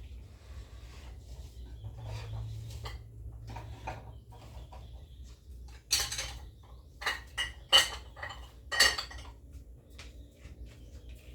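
Kitchenware being handled and set down: light clicks and knocks, then a run of sharp clinks and clatters about six to nine seconds in, typical of dishes and food containers knocking together.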